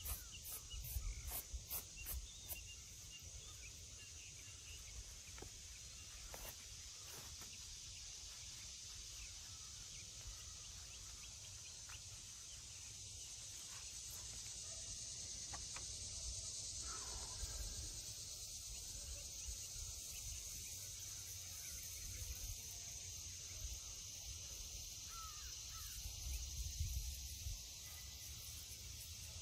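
Outdoor ambience with a steady high insect drone and a few bird calls. In the first couple of seconds a brush scrapes and clicks over a flat stone grave marker.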